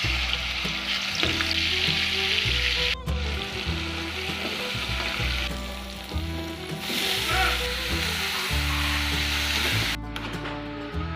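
Food sizzling as it fries in hot oil. The sizzle breaks off briefly about three seconds in, then runs on and stops shortly before the end.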